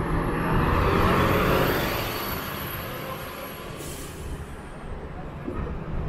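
A vehicle passing close by on a city street. Its noise is loudest about a second in and fades away over the next few seconds.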